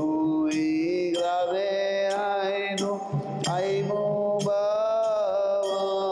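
Devotional chanting: a singer holding long notes and sliding between them over a steady drone, with occasional sharp percussion strikes.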